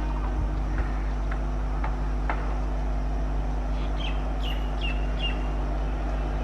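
Steady low engine rumble with a constant hum, and four short high chirps about four to five seconds in.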